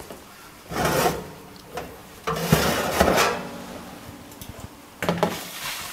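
A built-in oven door is opened and a metal baking tray slides out along the oven rails with a few sharp metallic clicks, then another clatter near the end.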